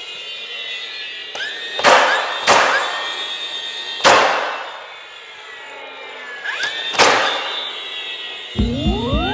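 DeWalt cordless finish nailer firing four nails into a trim board, at about 2, 2.5, 4 and 7 seconds in, each a sharp snap. A short rising whine from the tool's motor comes before some of the shots. Background music starts near the end.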